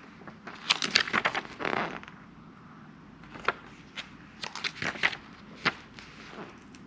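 Pages of a small paper rules booklet being handled and turned: crisp paper flicks and rustles in several bursts, busiest about a second in and again around four to five seconds in.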